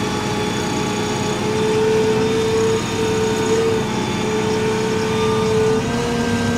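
Fendt 942 tractor running steadily, heard from inside the cab while it pulls a planter across the field: an even engine hum with a steady whine that wavers slightly in pitch.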